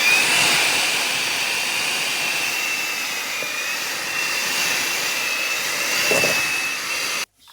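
Electric mixer beating butter: its motor whines up to speed at the start, runs with a steady high whine and cuts off suddenly near the end.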